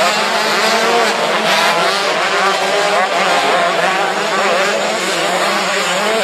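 Several motocross bikes' engines revving at once, their pitches rising and falling as the throttles open and close, over a steady lower drone.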